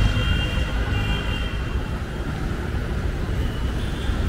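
Steady low rumble of street traffic, with a faint high steady tone that fades out about two seconds in.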